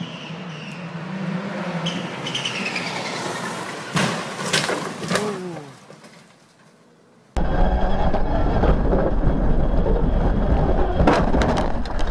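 A rally car's engine revs up as it comes on, then the car crashes into a pile of logs about four seconds in with a loud bang, and there is a second hit about a second later. After a short lull comes a loud, steady rumble of engine and road noise from inside a rally car's cabin, with scattered knocks.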